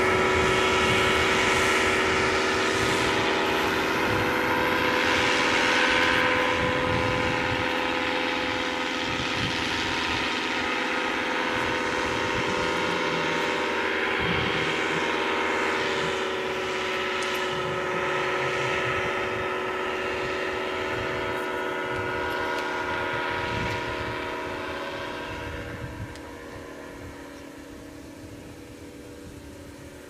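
Paramotor's two-stroke engine and propeller droning steadily overhead in flight, fading over the last few seconds as it moves away.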